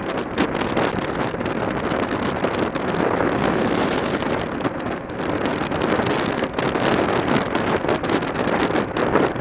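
Wind rushing and buffeting over the microphone of a camera on a motorcycle cruising at highway speed, with the motorcycle's running and road noise underneath; steady throughout.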